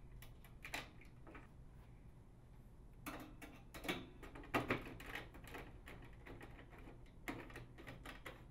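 Faint, scattered clicks and scrapes from a nut driver turning the acorn nut that holds a plastic bath-fan grill, and from the grill being shifted against the ceiling.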